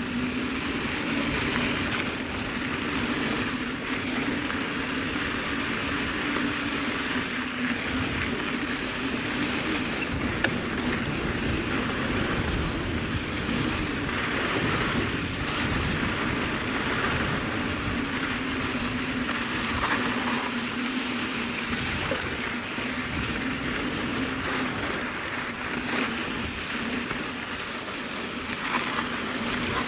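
Mountain bike riding along a dirt trail: steady wind noise on the microphone mixed with the rumble of tyres rolling over the trail.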